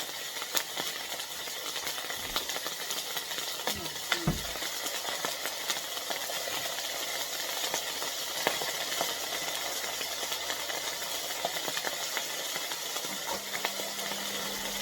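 Chicken wing pieces frying in hot olive oil in a frying pan, sizzling steadily with many small crackles and pops.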